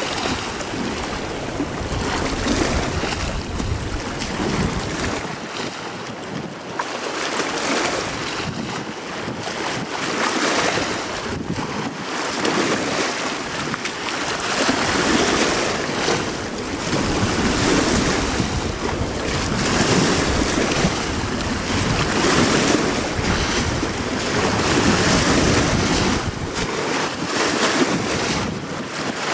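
Gusty wind buffeting the microphone over choppy water, swelling and easing every couple of seconds.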